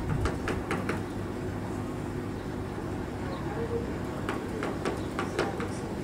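Long-tailed meadowlark pecking at a car's roof: two quick runs of about five sharp beak taps each, one at the start and one about four seconds in, over a steady low background rumble.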